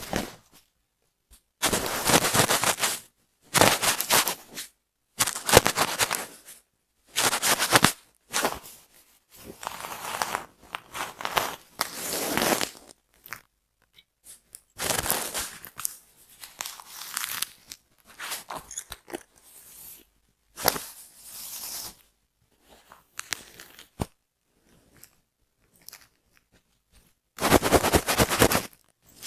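Close-miked scratching through hair at the scalp during a dandruff-removal treatment: about fifteen separate strokes, each roughly a second long, with silent gaps between.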